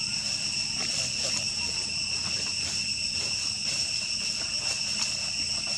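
Insects buzzing in a continuous, steady, high-pitched drone, with faint scattered clicks under it.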